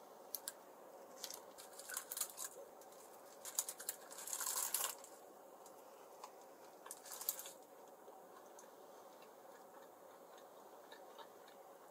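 Takeout food packaging being handled: soft crinkles and small plastic clicks come in scattered bursts through the first five seconds and again around seven seconds in, then it goes quiet.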